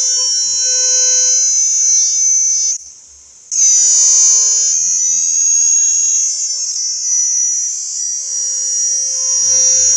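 Cicada singing: a loud, continuous high-pitched buzz that breaks off for under a second about three seconds in, then starts again.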